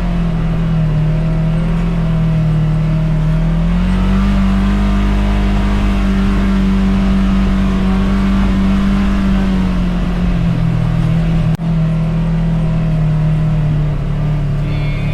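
Side-by-side UTV engine running under way on a trail. Its pitch rises about four seconds in, holds, then drops back about ten seconds in, with a momentary break about three-quarters of the way through.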